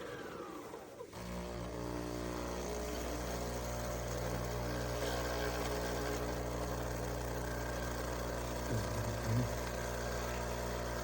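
Nespresso Vertuo Pop+ coffee machine running: a whine falling in pitch dies away about a second in, then a steady mechanical hum continues, with a couple of brief low thumps near the end.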